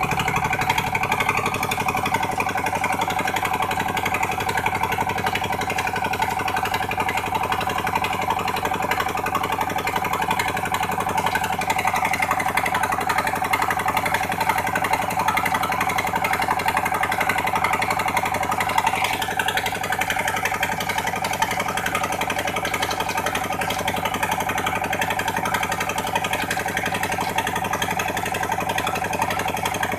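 Engine of a sand suction pump machine running steadily under load, with a fast, even firing beat.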